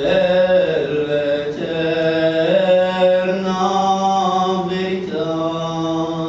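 A man singing a devotional bhajan in long, held notes, with a new phrase beginning about five seconds in.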